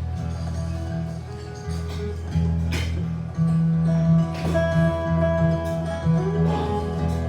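Live guitar music: an instrumental passage of plucked and strummed guitar over steady bass notes, with no singing.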